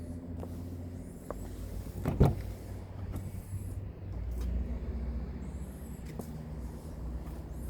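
Car engine idling with a steady low hum. A single sharp knock comes about two seconds in, with a few lighter clicks around it.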